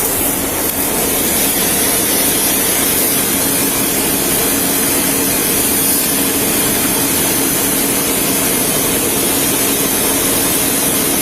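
An engine running steadily close by: a constant hum over a loud, even rushing noise.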